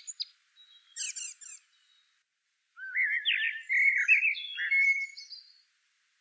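Birdsong: a few quick chirps at the start, a short burst of call notes about a second in, then a longer, rapidly warbling phrase that wavers up and down in pitch from about three seconds in.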